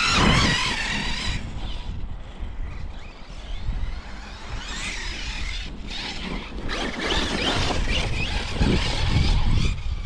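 Arrma Kraton 6S RC truck's brushless motor and drivetrain whining, the pitch rising and falling with the throttle, in spells near the start, about halfway through and through the last three seconds. Wind rumbles on the microphone throughout.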